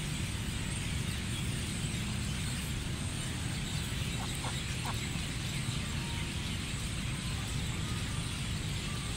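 Steady low rumbling background noise, with a few faint short duck calls about four and a half seconds in.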